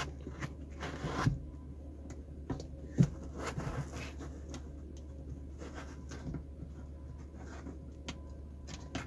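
Faint handling noises: soft rustling and a few light clicks as the plastic hook of an air freshener sachet is fitted onto a car's rearview mirror. The sharpest click comes about three seconds in.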